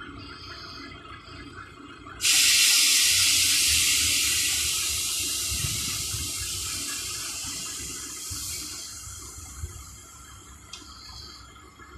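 A loud hiss of air venting from a tipper truck's pneumatic system. It starts suddenly about two seconds in and fades away slowly over several seconds, over a low rumble.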